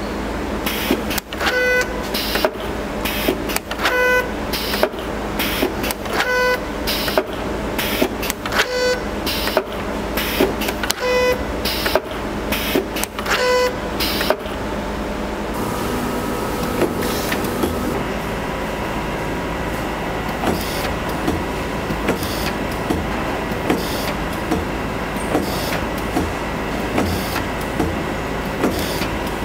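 Automatic bottle capping machine running: pneumatic cylinders clacking and hissing, with a short pitched tone that comes back about every two and a half seconds, once per capping cycle. About halfway through the sound changes to the steadier hum and regular lighter clicks of the Onitex L200 top-and-side bottle labelling machine.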